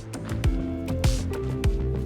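Background music with a steady beat: sustained tones over a regular kick drum and cymbal-like hits.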